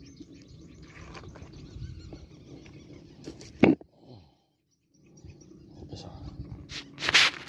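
Handling noise as a large tilapia is gripped and pushed into a mesh net bag: rustling and knocking, with one sharp loud knock a little past halfway and a brief loud rustle near the end.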